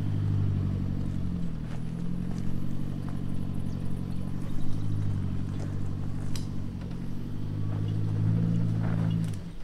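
Four-wheel-drive ute engine running at low, steady revs while crawling up a steep, rutted dirt hill climb, with a few scattered knocks.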